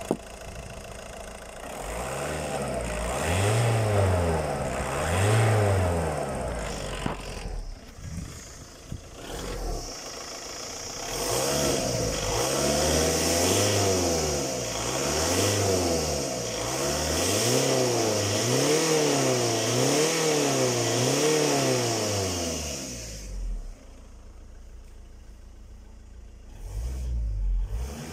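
Skoda Octavia 2.0 TDI (BMM) four-cylinder turbodiesel revved up and down repeatedly from idle: two revs early, a short lull near idle, then a long run of about eight quick revs of a second and a half each before it drops back to idle.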